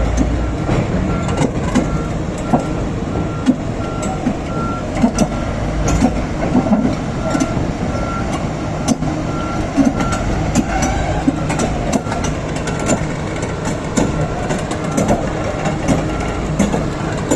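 Komatsu PC4000 mining excavator running under load as its bucket scrapes and clatters through poorly blasted solid rock, with a steady engine drone and frequent sharp knocks of rock on steel. A reversing alarm beeps steadily and stops about ten seconds in.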